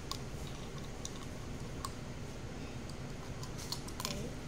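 A few light clicks and taps of a black carbine-kit grip being handled while a screw is driven into it with a small screwdriver, more of them near the end, over a steady low background hum.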